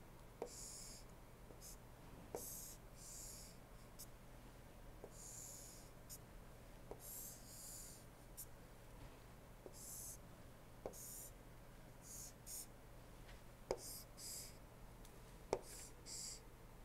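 Faint scratching of a stylus drawing on a tablet or pen display: short scratchy strokes one after another, with light taps of the pen tip between them, over a steady low hum.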